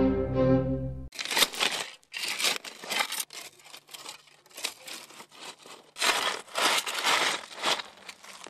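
Steel shovel digging and scraping into loose river gravel and pebbles: a run of irregular crunching, rattling strokes. Orchestral music plays for about the first second and then stops.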